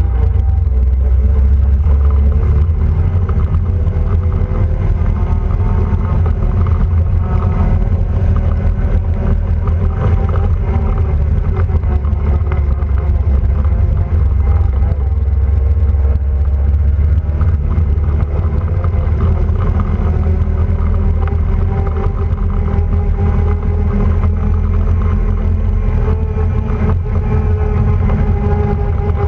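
Quad bike (ATV) engine running under way with a heavy low rumble, its pitch drifting gently up and down as the throttle varies.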